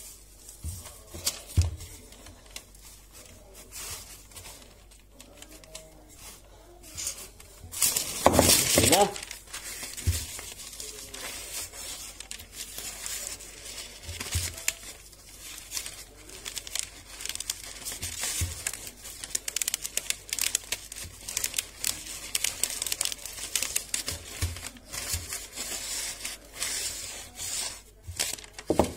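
Baking paper crinkling and rustling under a wooden rolling pin as chilled shortcrust dough is rolled out on it, with a louder rustle about eight seconds in.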